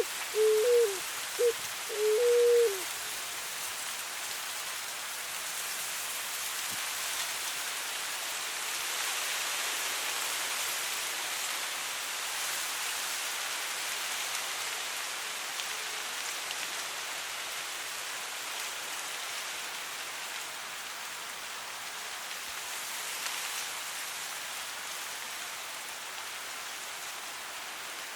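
Soft wind rustling through dry grass, a steady hiss. For about the first three seconds a cuculí dove coos, a short run of low notes.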